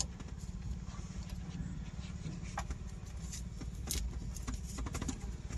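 Plastic wiring-harness connectors clicking and rattling a few times as they are handled by hand, over a steady low mechanical rumble.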